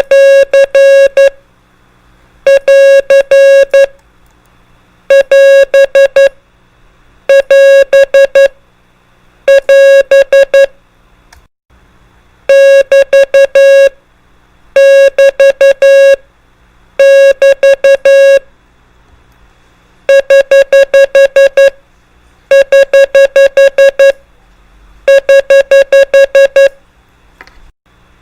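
Morse code (CW) sent as a steady beep of about 600 Hz, keyed in quick groups of dits and dahs. Each group lasts about a second and a half, and a new one starts about every two and a half seconds: prosigns sounded out one after another.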